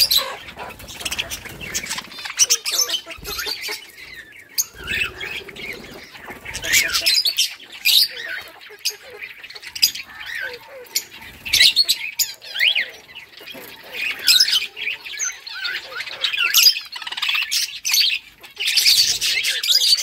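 A flock of budgerigars chattering: many short, overlapping chirps and squawks in an irregular, continuous stream.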